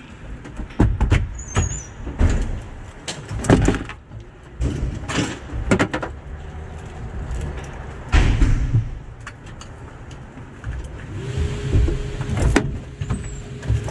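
2010 Pierce Arrow XT fire engine's diesel engine idling, heard from inside the cab, with repeated knocks and clunks over it. A steady tone joins near the end.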